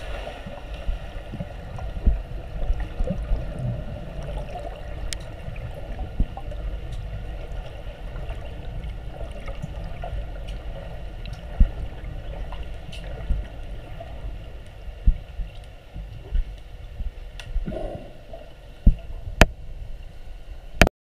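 Underwater pool ambience picked up by a submerged camera: a steady low rumble with a faint steady hum, scattered clicks and gurgles, and a few sharper knocks in the last few seconds.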